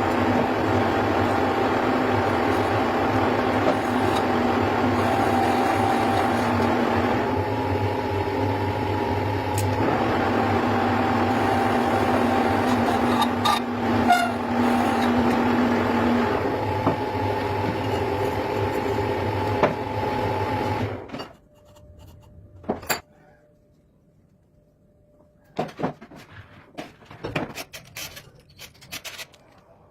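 Motorcycle engine running at a steady speed, cutting off abruptly about two-thirds of the way through. Afterwards come scattered light clicks and scraping of tools on metal.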